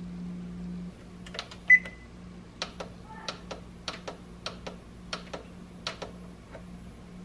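Frigidaire oven control panel being set: one short high beep, then a string of light clicks from fingers pressing the temperature button, coming in pairs about every 0.6 s as the setting steps up. A steady low hum runs underneath.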